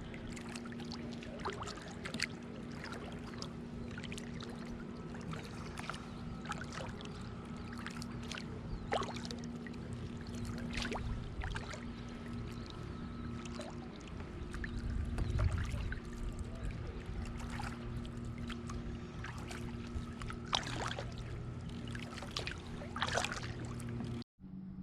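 A kayak moving across a lake: water trickling and splashing in small irregular drips and slaps against the hull, over a steady low hum.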